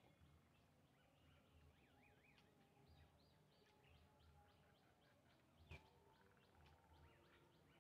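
Near silence with faint bird chirps: a long run of short, quick repeated chirps, and a single soft tap about three quarters of the way through.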